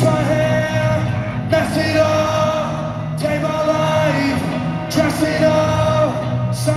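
Live rock band playing loud amplified music with sung vocals: long held notes in phrases of about a second and a half over guitars and drums, heard from the audience in a large arena.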